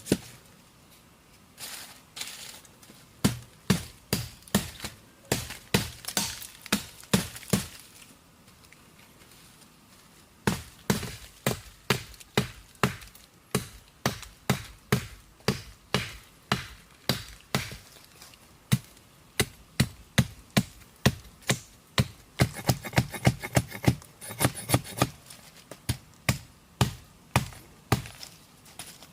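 Repeated chopping strikes of a blade into wood, coming about one to two a second, with a pause of a couple of seconds about a third of the way in.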